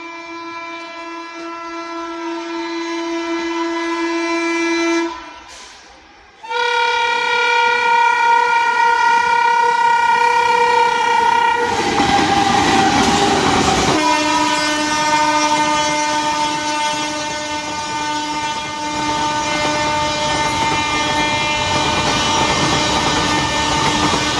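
Indian Railways locomotive horn sounding long held blasts at changing pitches, growing louder over the first few seconds. About halfway through, a train rushing past with wheels clattering takes over under a lower, continuing horn blast.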